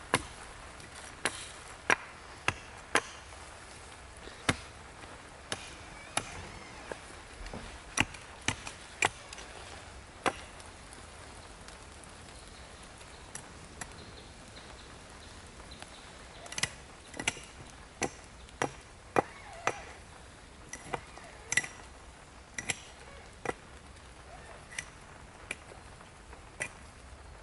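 Axe blows on a thin wooden pole held upright: sharp single chops, irregularly spaced about half a second to a second and a half apart, with a lull of a few seconds around the middle.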